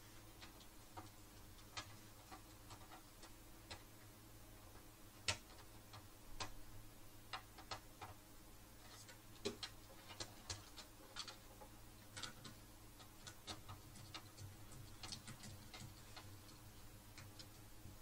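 Faint, irregular small clicks and taps of hands and a screwdriver handling parts inside an opened DVR's metal case, over a low steady hum.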